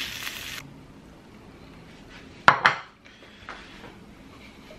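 Frying sizzle that cuts off abruptly about half a second in, then two sharp clinks of dishes about two and a half seconds in, followed by a few softer knocks.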